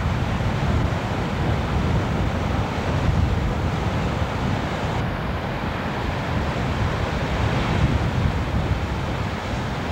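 Ocean surf breaking and washing in, a steady rushing noise, with wind buffeting the microphone as a gusty low rumble.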